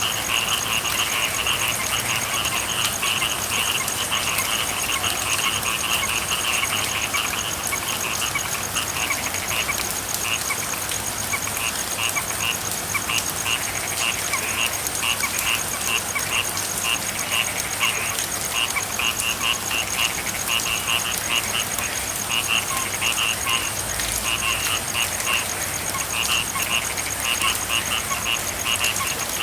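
Frogs calling in runs of short, rapid, repeated croaks over the steady hiss of rainfall, with a thin steady high tone underneath.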